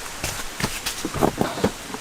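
Steady rain hiss with irregular sharp taps and knocks, about eight in two seconds, of heavy drops striking a hard surface.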